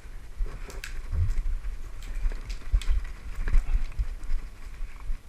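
Footsteps of an airsoft player moving quickly: irregular heavy thuds with sharp clicks and rattles of gear.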